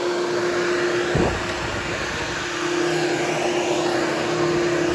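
Hoover Hushtone vacuum cleaner running steadily over berber carpet, a steady motor hum over airflow noise, with a brief knock about a second in.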